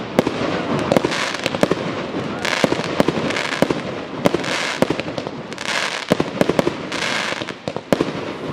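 Aerial firework shells bursting in quick succession: sharp bangs, several a second at times, with stretches of crackling hiss from the bursting stars.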